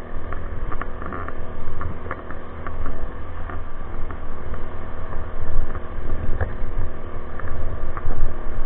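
Small onboard gas generator engine running steadily on a hybrid electric bike, with heavy wind buffeting the microphone in uneven gusts.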